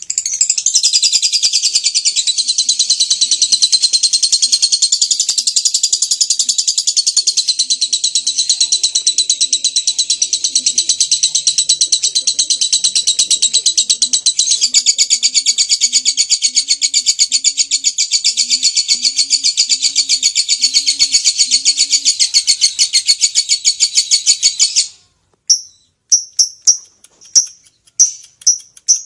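Lovebird singing its long 'ngekek': one unbroken, high, fast-chattering trill lasting about twenty-five seconds, which then breaks off into a handful of short separate chirps near the end.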